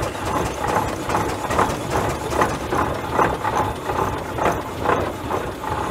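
1920 Huber steam traction engine running, its exhaust beating at an even rhythm of about two and a half chuffs a second, with light clicking alongside.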